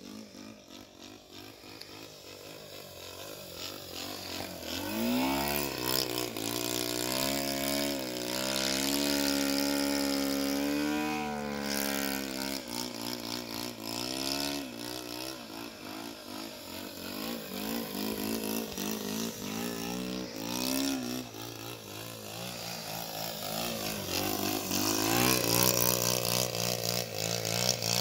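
Magnum .80 glow engine of a radio-controlled SPAD model airplane in flight. Its pitch swoops up and down again and again as the plane throttles and passes. It is faint at first and gets louder from about five seconds in, loudest near the end.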